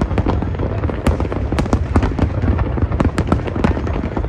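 Fireworks display: a dense, continuous barrage of crackling and popping shell bursts, several sharp cracks a second, over a steady low rumble of booms.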